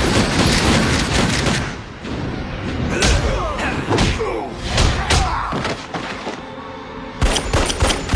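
Cartoon action soundtrack: a fusillade of handgun and tommy-gun fire at the start, then dramatic orchestral music with a few heavy thuds, and the rapid gunfire starts again near the end.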